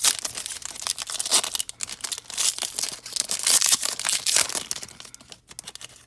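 A trading card pack's plastic wrapper being torn open and crinkled by hand: a dense run of crinkles and rips that thins out near the end.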